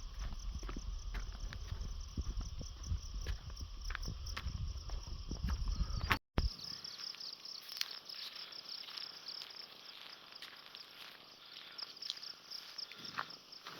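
Insects chirring in a steady, high-pitched, finely pulsing trill. In the first half a low rumble and scattered light crackles lie under it; these stop at a sudden brief dropout about six seconds in.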